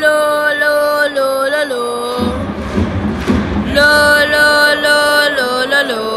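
Football supporters in the stands singing a chant: two long sung phrases with held, gliding notes and a short break of crowd noise between them.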